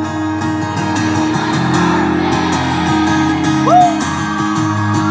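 Live country music: an acoustic guitar strumming with the band between sung lines, with one short sung note about three and a half seconds in.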